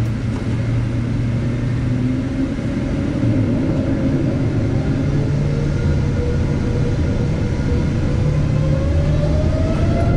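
Boeing 777-200's GE90 turbofan engines heard from inside the cabin while taxiing: a steady jet rumble, with a whine that rises in pitch over the last few seconds as the engines begin to spool up.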